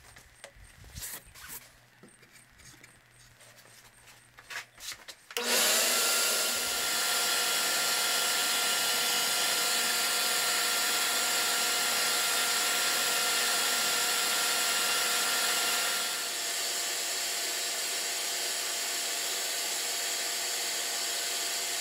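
Drill press converted to a spindle sander, starting up about five seconds in and running steadily with a sanding drum in the chuck while a small wood block is sanded against the spinning drum. A few light handling clicks come before the start.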